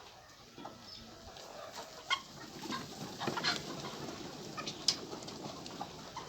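A flock of chickens clucking and calling over one another, the calls growing busier after the first second or two. About five seconds in there is a single sharp, high click.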